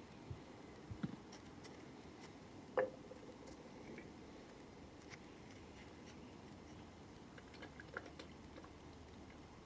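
Thick gunge dripping and pattering off a man's head into an inflatable paddling pool: faint scattered drips and clicks, with one sharper knock about three seconds in and a small cluster of splats near the end as more is poured.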